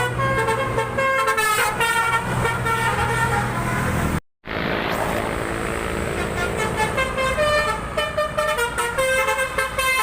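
Bus 'telolet' multi-tone air horns playing a tune of short pitched notes in quick succession. The sound breaks off into a brief silence about four seconds in, then the horn tune goes on.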